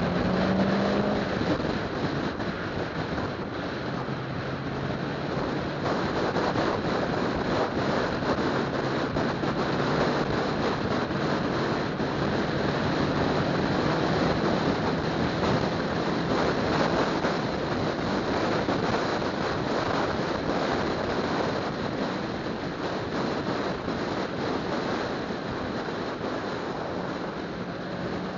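Car driving on a road: steady road and wind noise over the low hum of its engine, which rises in pitch briefly about a second in, then holds steady.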